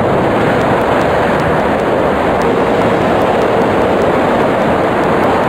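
Steady rush of interstate highway traffic: passing cars blending into one continuous noise.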